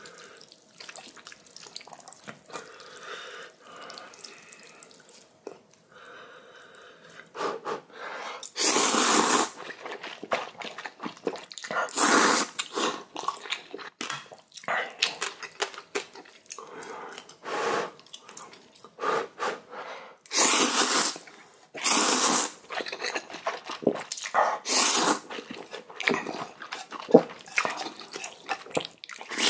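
Someone eating spicy ramyeon noodles. Quiet chewing and mouth sounds for the first several seconds give way to a long series of loud wet slurps of noodles and broth, each half a second to a second long.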